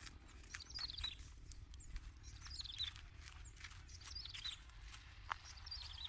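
A bird repeating a short, high, falling chirped phrase about every second and a half, with scattered sharp clicks or taps.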